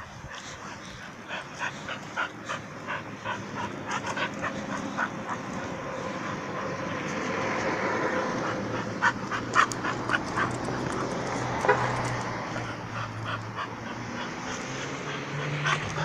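A dog giving many short whimpers and yips, over a rushing noise that swells around the middle and then fades.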